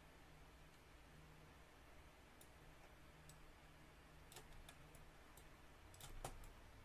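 Near silence with a few faint, sharp computer mouse clicks, mostly in the second half.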